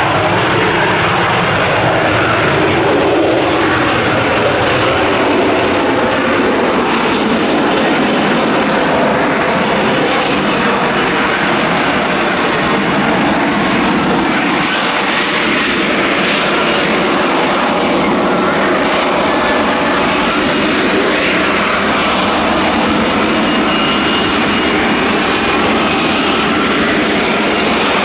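Lockheed Martin F-35B's F135 jet engine and shaft-driven lift fan running in vertical-landing (STOVL) mode, a loud, steady jet roar as the aircraft hovers and creeps slowly overhead.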